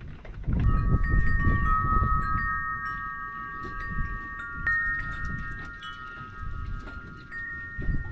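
Wind chimes ringing, several overlapping tones that start about half a second in and keep sounding, over a low uneven rumble.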